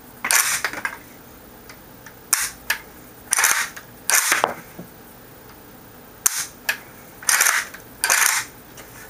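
A series of short, sharp metallic clacks, some in quick pairs, from a Kalashnikov-pattern rifle's action being worked by hand.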